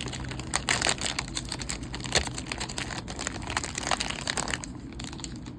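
Trading cards and their packaging being handled: rustling with many light clicks, quieter over the last second or so.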